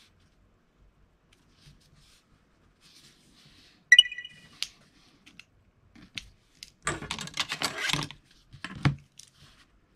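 Desk handling sounds as a steel ruler is picked up and laid on a styrene board: a sharp click that rings briefly about four seconds in, a burst of clattering and scraping around seven to eight seconds, and a thump near nine seconds.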